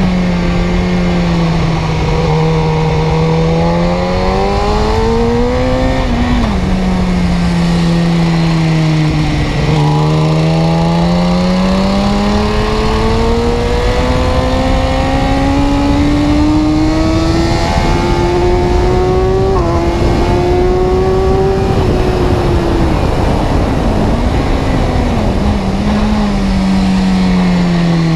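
Car engine running loud and steady, its pitch climbing slowly and sinking again several times, with a few sudden drops in pitch.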